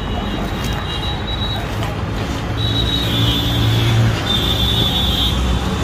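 Street traffic noise, with a vehicle engine's low hum swelling about halfway through and brief high-pitched squeals about three and five seconds in.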